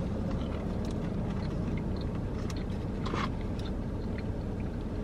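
A steady low car-cabin hum with close-up chewing and soft mouth clicks from someone eating a sub sandwich, and a brief rustle a little after three seconds in.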